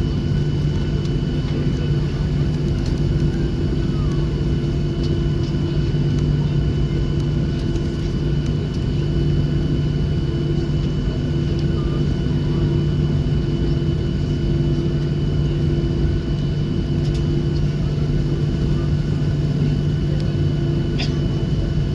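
Boeing 737-800's CFM56-7B jet engines at taxi idle, heard inside the passenger cabin as a steady low hum with a thin high whine. A couple of faint clicks near the end.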